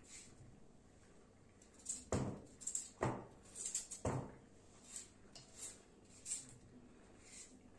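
Small knife cutting through a raw potato held in the hand, with short crisp cuts repeating, and potato chunks dropping into a metal baking tray with three louder clunks about two, three and four seconds in.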